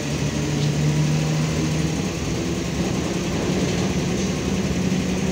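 Steady engine drone of a MAN Lion's Classic city bus heard from inside the passenger cabin, its low hum stepping up in pitch about halfway through.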